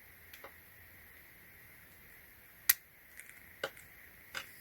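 Handling clicks from the small plastic RC car and its charging cable: a few light clicks and taps, with one sharp, much louder click about two and a half seconds in.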